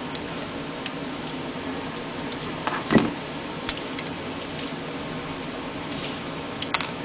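Scattered light clicks and taps of small screws and metal parts being handled and set into a Wahl Senior clipper's switch housing, with one louder knock about three seconds in and a quick pair of clicks near the end.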